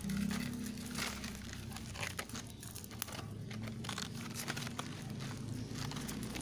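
Clear plastic wrapping around the root ball of an air-layered rubber plant crinkling and rustling as it is snipped open with scissors and pulled away, in many short irregular crackles, over a low steady hum.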